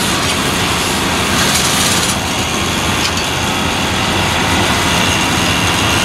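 John Deere tractor running steadily while it drives a John Deere C440R baler-wrapper combination, with the baler's machinery working.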